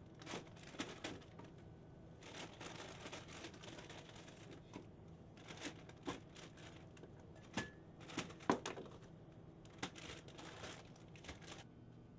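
Packaging crinkling and rustling, with scattered sharp clicks and knocks as items are handled on a shop counter; the loudest knock comes a little past the middle. A faint steady low hum runs underneath.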